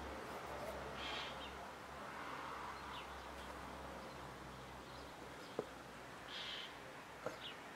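Quiet outdoor ambience with a few short, high bird chirps, one about a second in and another about six and a half seconds in, and a couple of faint clicks.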